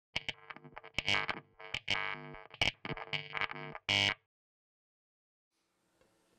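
Glitchy intro sting of distorted, stuttering music chopped into rapid bursts, cutting off sharply about four seconds in. It is followed by near silence and a faint hiss.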